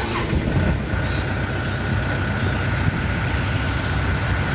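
Kubota 4508 tractor's diesel engine running steadily, with a thin steady whine joining about a second in.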